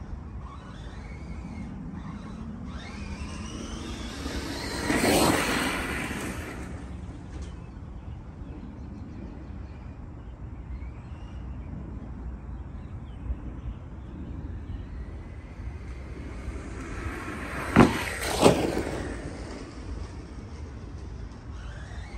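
ARRMA Mojave 4S RC truck's brushless motor whining as the truck drives, its pitch rising and falling, with one loud pass about five seconds in. Near the end come two sharp thumps less than a second apart as the truck hits the ramp and lands.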